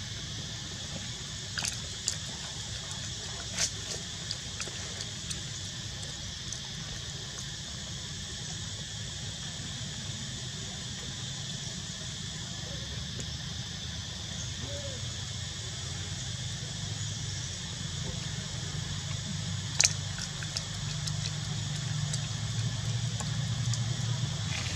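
Steady background noise, a low hum under a high hiss, with a few short sharp clicks, a louder one about twenty seconds in.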